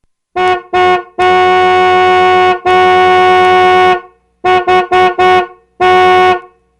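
Car horn honking: two short toots, two long blasts of about a second and a half each, three quick toots, then one last short toot. Each honk holds one steady pitch.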